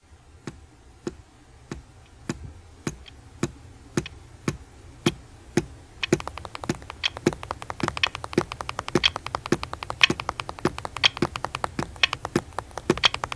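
Steady tapping, a little under two taps a second. About six seconds in, faster and louder taps join in: fingers drumming on a school desk.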